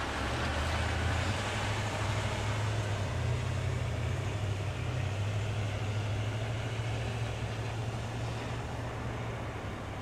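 Vehicle engines running as cars drive slowly along a snow-covered road: a steady low hum with a hiss above it, easing off a little toward the end.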